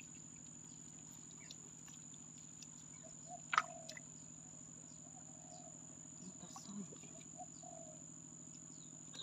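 Faint, steady chorus of crickets, a continuous high trill, over a low steady hum. There are a few short chirps and one sharp click about three and a half seconds in.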